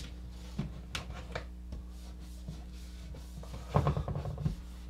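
A sticker being pressed and smoothed onto a wooden wall by hand: a few light clicks and crinkles, then a short run of dull thumps and rubbing about four seconds in. A steady low hum runs underneath.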